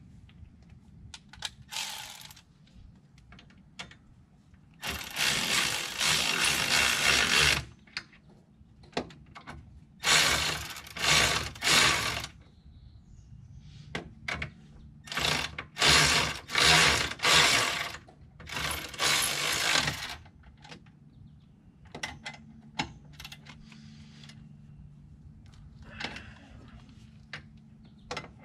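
Ratchet wrench clicking in four bursts of one to two and a half seconds as bolts are run in and snugged on the brake caliper, with light metal clinks of tools and parts between.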